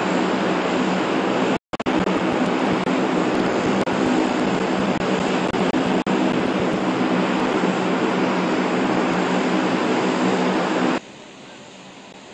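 Aircraft engines running steadily and loudly: a broad rush with a low, even hum under it. The sound breaks off for an instant at about one and a half seconds, then falls to a much quieter rush about eleven seconds in.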